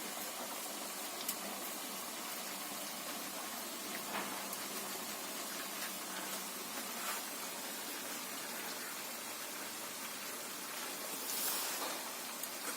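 Batuk fritters deep-frying in hot oil: a steady sizzle with a few faint crackles.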